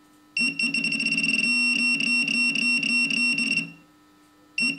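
Minelab Pro-Find 35 pinpointer sounding its alert for an iron target at the probe tip: a steady, high electronic beep over a fast pulsing buzz. It runs for about three seconds, stops, and starts again near the end. This is the pinpointer signalling a ferrous target.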